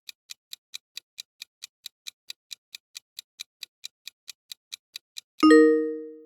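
Quiz countdown-timer sound effect: even clock ticks, about four to five a second, then about five and a half seconds in a single loud bell-like ding that rings and fades as the timer runs out.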